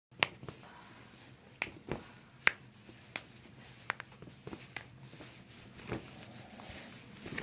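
Toe joints cracking under a chiropractic adjustment: a series of sharp, separate pops, about eight over several seconds, the loudest about a quarter second in and about two and a half seconds in.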